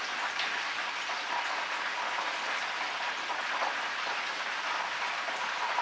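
Chicken pieces frying in hot oil in a pan, a steady sizzle with scattered small pops as they crisp.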